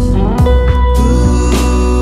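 Background music: a song with guitar, sustained gliding notes over a repeating low beat.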